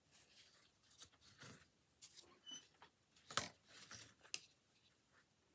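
Faint handling sounds of stick shuttles and cotton yarn being passed through the loom's shed: light rustles and small clicks, with one sharper click about three and a half seconds in.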